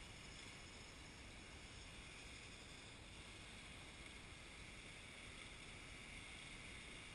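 Near silence: a faint, steady background hiss with no distinct events.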